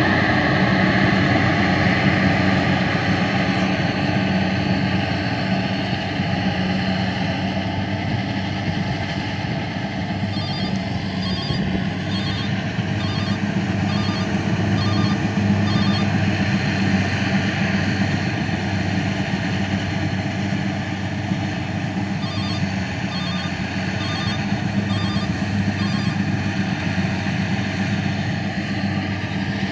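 A rice combine harvester's diesel engine running steadily under load as it harvests. Twice, for about five seconds each time, a high electronic double beep repeats about once a second over the engine.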